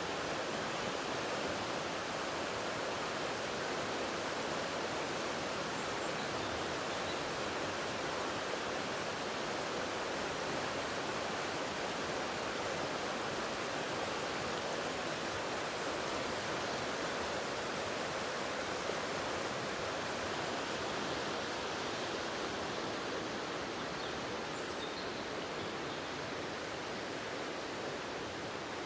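Waterfall rushing: a steady, even wash of falling water, easing very slightly near the end.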